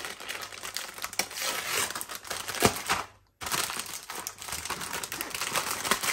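Cardboard sleeve scraping and sliding off a plastic-wrapped food tray, then the tray's plastic film crinkling as it is handled. The sound cuts out briefly about three seconds in.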